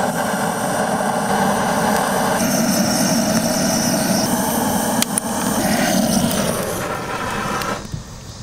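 Handheld gas blowtorch running with a steady hiss as its flame is played onto firewood logs. It cuts off shortly before the end, with a single click a little past halfway.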